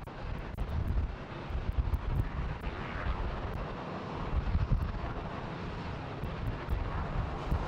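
Jet engines of a Boeing 767 freighter at takeoff power as it climbs away: a steady rushing jet noise, with irregular low rumbles of wind on the microphone.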